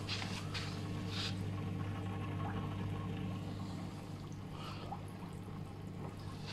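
Inflatable spa's filter pump running with a steady hum, circulating the water so that it trickles and swirls in the tub.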